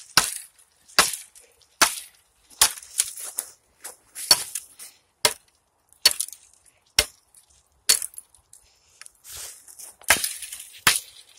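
Hatchet chopping small branches off a felled tree: about a dozen sharp wooden strikes, roughly one a second.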